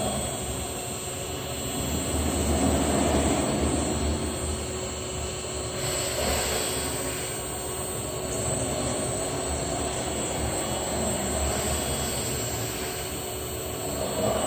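Thermwood 5-axis CNC router running, its gantry and head travelling: a steady mechanical whir that swells and eases as the axes move. It is loudest about two to four seconds in and again at the very end.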